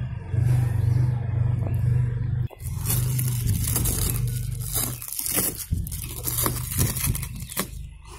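Corrugated cardboard parcel sealed with plastic packing tape being torn open by hand: a run of quick ripping and crinkling sounds starting about two and a half seconds in, over a steady low hum.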